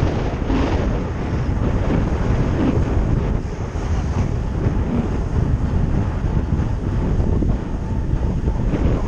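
Heavy wind buffeting on a helmet-mounted GoPro's microphone as a bicycle descends at about 27 to 28 mph: a loud, gusting rumble that keeps rising and falling.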